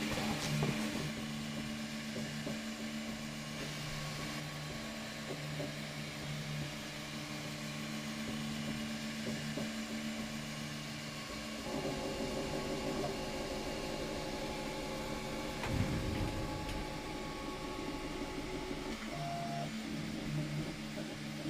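Ultimaker 2 3D printer's stepper motors humming while it prints, a steady hum that pulses on and off as the print head moves. About twelve seconds in the motor sound changes to a rougher, busier pattern, then goes back to the first pattern near the end.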